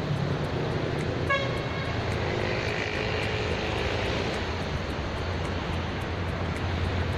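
Steady rumble of distant traffic, with a brief high-pitched tone about a second in.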